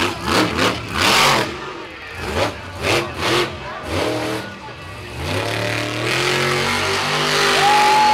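Monster truck's supercharged big-block V8 revved in a string of sharp throttle blips, then held wide open, its pitch climbing and leveling off at high revs as the truck spins in the dirt.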